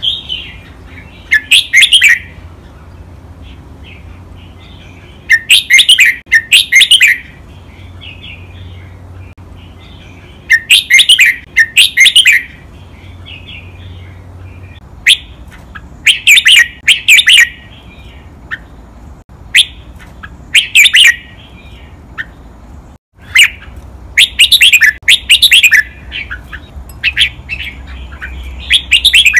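Red-whiskered bulbul singing: loud, clear phrases of a few quick whistled notes, doubled, repeated about every four to five seconds with short pauses between.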